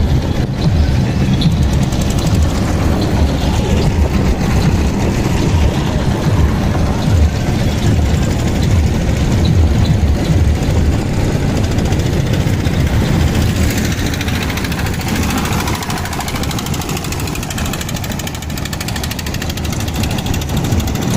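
A motorboat engine running steadily and loudly, a continuous low chugging with a fast even beat.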